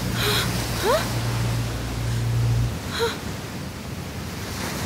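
Steady wash of sea surf with a man's short gasps, one near the start and another about three seconds in. A low steady hum underneath cuts off just under three seconds in.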